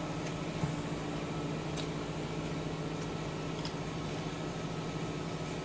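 A steady low hum with a faint fixed whine, with a soft knock under a second in and a few faint clicks of chopsticks against a ceramic bowl of noodles.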